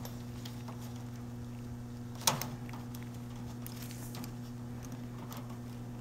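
Steady low hum, with one sharp click about two seconds in and a few faint ticks: a wire's spade connector being pushed onto a terminal of the heater's circuit board as the blower motor is reconnected.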